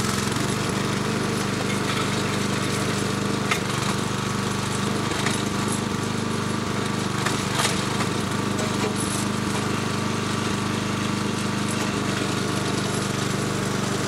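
Small engine on a homemade towable backhoe running steadily, driving the hydraulics as the boom and bucket move, with a few sharp clicks and knocks through it.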